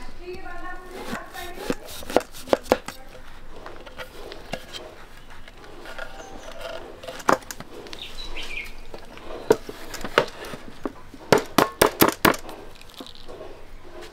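Clinks and knocks of a steel plate being handled on a wooden stool, then a quick run of sharp knocks near the end as the upturned plate is tapped down to release the coconut burfi onto a banana leaf.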